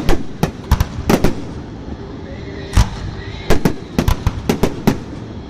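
Fireworks display: a rapid series of sharp bangs from bursting shells, several in the first second, a short lull, then a quick run of about ten bangs towards the end.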